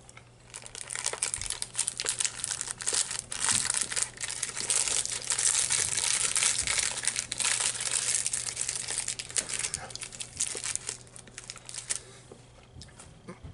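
Plastic wrapper crinkling and crackling for about eleven seconds, with many small clicks, dying down near the end.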